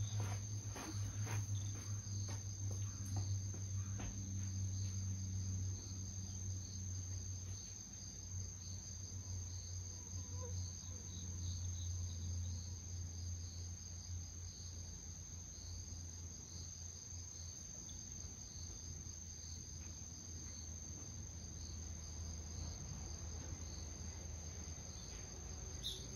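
Insects singing in a steady high-pitched trill over a constant low hum, with a few soft taps in the first few seconds.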